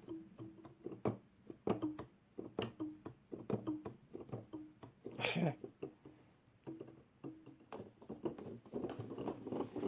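Yamaha CP-70 electric grand piano keys struck one at a time, short notes mostly around the same pitch, each with a knock from the key action, whose felts are worn. A louder, brighter strike comes about five seconds in.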